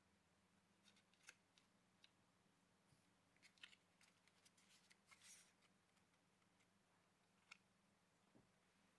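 Near silence with a few faint clicks and rustles of cardstock being held, turned and folded in the hands, over a steady low hum.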